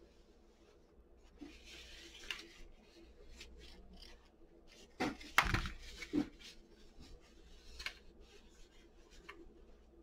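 Sheets of sublimation transfer paper being handled and shifted on a heat press, with soft rustling and a few sharp knocks about halfway through.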